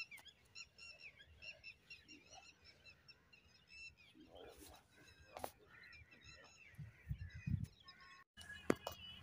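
Many small birds chirping, faint, with short high calls repeated throughout. A few low bumps come near the end.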